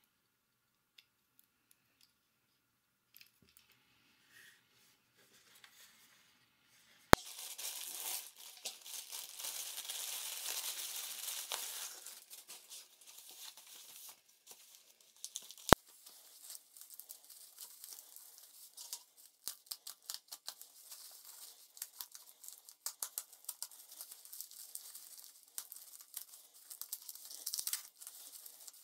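Packaging being unwrapped by hand: a few faint clicks, then about seven seconds in a sharp click and several seconds of tearing, followed by irregular crinkling and crackling of bubble wrap and foam sheet as a wrapped box is pulled out, with one more sharp click partway through.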